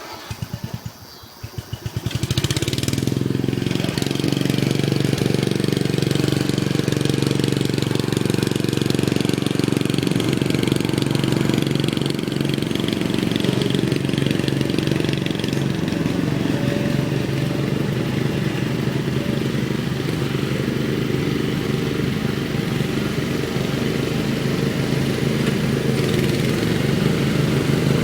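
Riding lawn mower engine being cranked for about two seconds, catching and then running steadily.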